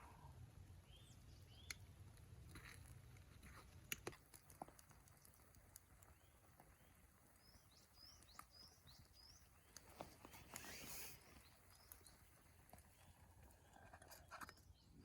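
Quiet outdoor stillness with a small bird chirping several times in quick short notes, mostly around the middle. A few sharp clicks are scattered through it.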